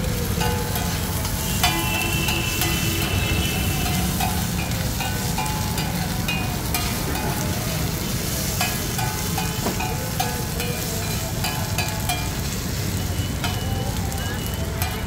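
Chicken with onions and green peppers frying on a large flat iron griddle, sizzling steadily. A metal spatula scrapes and clacks against the griddle as the food is stirred, in many short ticks.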